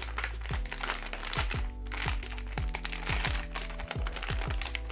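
Blind-box packaging crinkling and rustling under hand handling, over background music with a steady beat of deep bass notes that drop in pitch.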